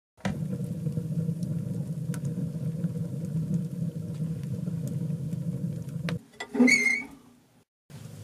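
Wood fire burning in a stove's firebox: a steady low roar with scattered crackles. About six and a half seconds in comes a short, loud, wavering squeaky creak, the loudest sound here.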